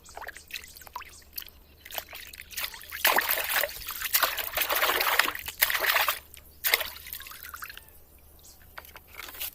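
Water trickling and pouring over a plastic toy being washed, with a heavier stream for about three seconds in the middle and small drips and splashes around it.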